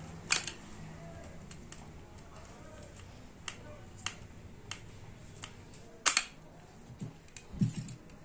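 Irregular small clicks and taps of a screwdriver and wire working at a ceiling fan's plastic terminal block, with the sharpest clicks just after the start and about six seconds in.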